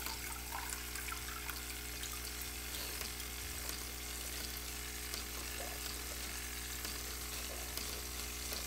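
KollerCraft TOM Mr. Cleaner battery-operated gravel siphon running submerged in an aquarium: a steady hum with a fizzing, trickling rush of water drawn through it.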